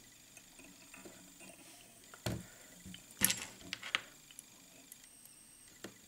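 Faint handling noises as thread is secured on a fly-tying hook held in pliers: a few sharp small clicks and knocks, loudest in a cluster a little past three seconds in, with one more near the end.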